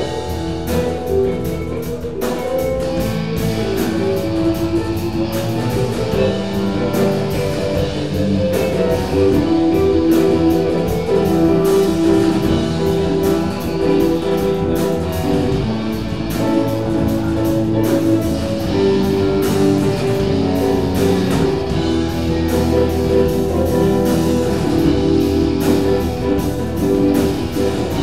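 Live improvised rock jam: two electric guitars, electric bass, keyboard and drum kit playing together, with guitar lines standing out.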